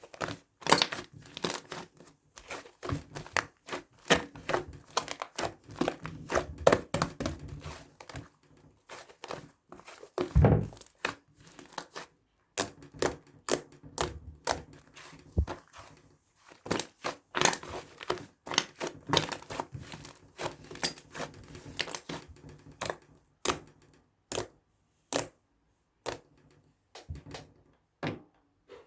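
Irregular handling noises: many sharp clicks and taps, crinkling, and the odd dull thud, with one heavier thud about ten seconds in.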